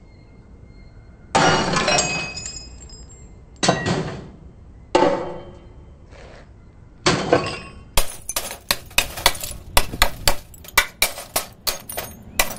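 Metal rod smashing a CRT television's glass picture tube: four heavy crashes of breaking glass, each ringing off with clinking shards. Then, from about two-thirds of the way in, a fast run of sharp taps and clinks, several a second, as the rod chips at the broken glass.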